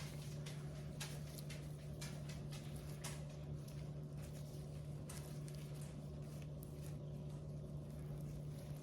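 Hands stuffing a jalapeño half with cream cheese and wrapping it in bacon: faint scattered clicks and soft squishes over a steady low hum.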